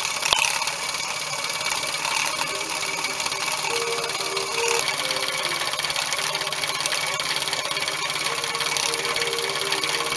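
Small home-built double-acting model steam engine running fast and steadily, with a rapid even beat and hiss, turning the tram's wheels through a rubber belt drive.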